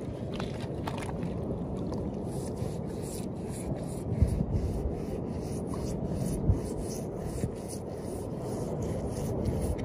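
Toothbrush scrubbing algae off a turtle's shell: quick, repeated scratchy brushing strokes, with a couple of low handling thumps about four and six and a half seconds in.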